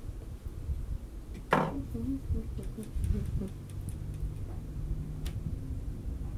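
Handling noise at a dressing table: one sharp knock of a hard object on the table about one and a half seconds in, then a few faint clicks, over a low steady hum.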